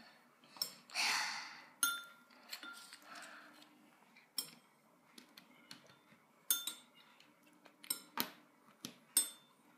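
Small plastic Lego pieces clicking and knocking as they are handled and pressed together, about ten separate sharp clicks spread unevenly, with a short rustle about a second in.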